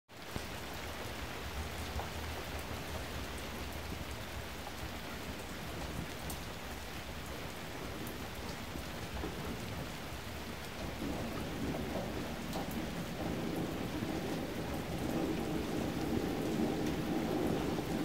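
Steady rain falling around a rural train station. From about eleven seconds in, the sound of an approaching Toyama Chiho Railway 16010 series electric train rises under the rain and grows louder toward the end.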